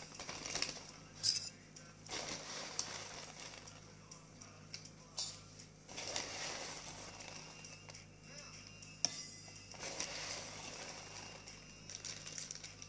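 Plastic bag of coriander seeds rustling as seeds are scooped out with a small metal spoon, with a few light clicks and clinks.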